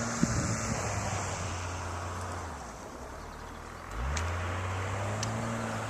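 A motor vehicle engine running steadily, easing off, then revving up about four seconds in and holding at the higher speed.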